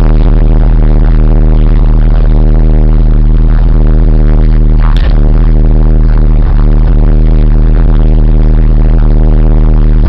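Overloaded, badly distorted camera-microphone recording: a loud, steady low drone with crackle throughout, the fireworks and crowd lost in it. There is one sharp crack about five seconds in.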